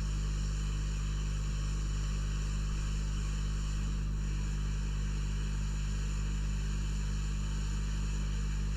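Hot air rework station blowing steadily onto an SMD chip to melt its solder, with a steady mains hum underneath.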